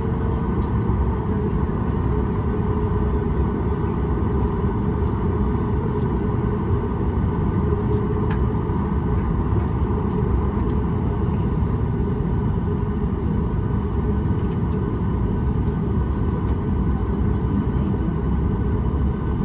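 Steady low rumble inside a Boeing 737 MAX 8 on the ground before takeoff, its engines running at idle, with a faint steady hum above it.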